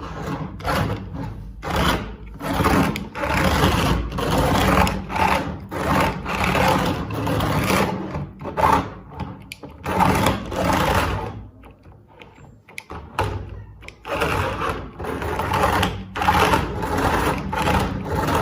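Toy remote-control stunt car's small electric motors whirring in repeated short bursts as the remote's buttons are pressed, its wheels spinning freely off the ground.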